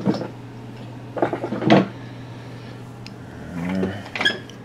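Knocks and clatter of objects being handled while a flashlight is fetched, in a couple of short clusters, with a few sharp clicks near the end, over a steady low hum.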